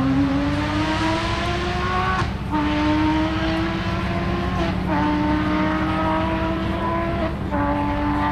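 Porsche 911 GT3 rally car's flat-six engine accelerating hard away through the gears. The note climbs steadily, broken by three quick upshifts about two and a half seconds apart.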